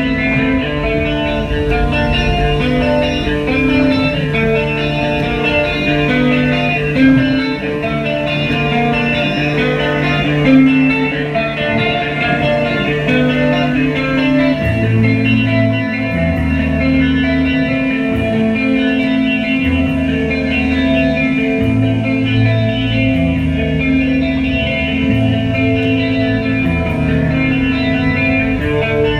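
Guitar-led music with a bass line, steady and loud throughout.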